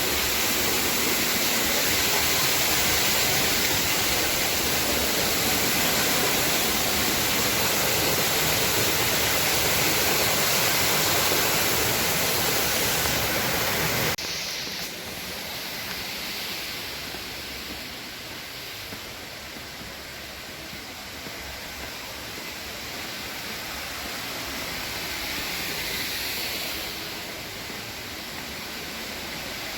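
Rushing water of the upper Düden waterfall, a steady dense roar that drops suddenly to a softer, duller rush about halfway through.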